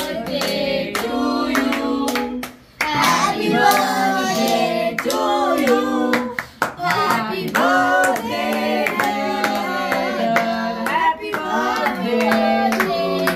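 A group of children and adults singing a birthday song together, with hand claps in time, and a short break between lines about two and a half seconds in.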